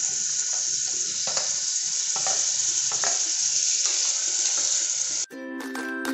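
Onion, garlic and chopped tomatoes sizzling steadily in hot oil in a pressure cooker, with light scrapes of a wooden spatula stirring. About five seconds in the sizzling cuts off abruptly and a jingly music tune begins.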